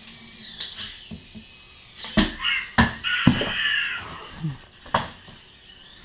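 Parrot Jumping Sumo minidrone's electric motors whining high as it sets off on a jump, then a series of sharp knocks as the little two-wheeled drone lands and tumbles on a wooden floor, with its motors whining again in the middle.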